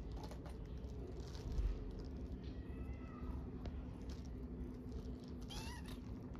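Hungry kittens meowing for food: a faint, drawn-out meow midway and a short, louder meow near the end, over a steady low rumble.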